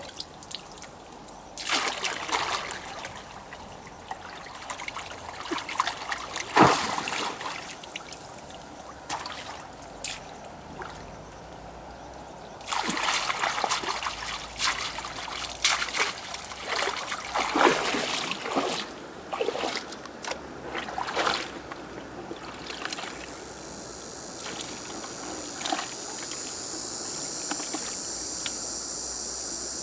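Water splashing and trickling in irregular bursts. A steady high-pitched hiss sets in about two-thirds of the way through.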